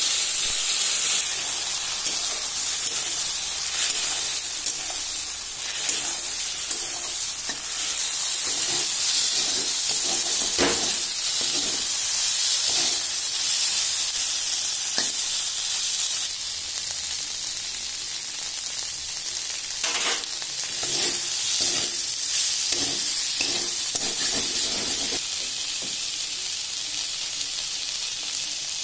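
Cut okra sizzling as it fries in a steel pan, with a metal spatula scraping and knocking against the pan as it is stirred. The sizzle is loudest at the start, when a wet spice paste is poured in, and its level shifts abruptly a few times.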